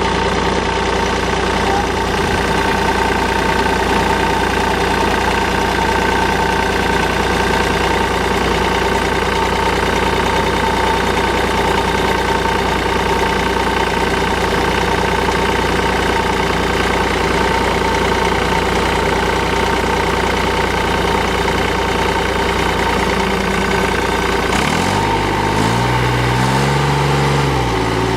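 Air-cooled Deutz diesel engine of a Ditch Witch 1025 SK backhoe running steadily at idle, its speed rising and dipping briefly near the end.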